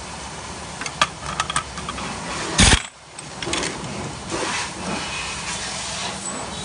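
A pneumatic impact wrench fires one short, loud burst, loosening the rear clutch nut of a Honda Vision scooter. Metal clicks and clinks of the socket and tool being handled come before and after it.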